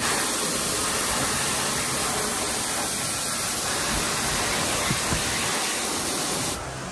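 A steady, loud hiss spread evenly from low to very high pitch, starting suddenly and cutting off suddenly near the end.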